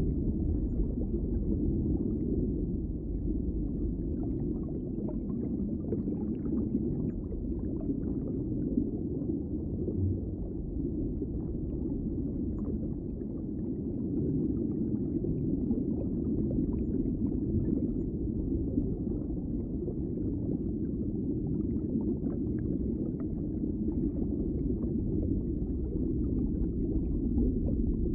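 Underwater ambience: a steady, muffled low rumble with faint scattered crackles and ticks over it.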